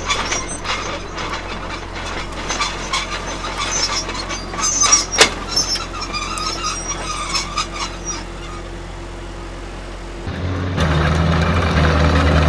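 Tank on the move: a steady low engine hum under a continuous clatter of clicks and clanks from the running gear, with one sharp clank about five seconds in. About ten seconds in the engine gets clearly louder and heavier.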